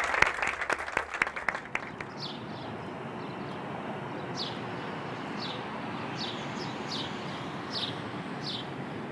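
A room of people applauding, the clapping fading out about two seconds in. It gives way to steady outdoor background noise, with a bird giving short falling chirps over and over.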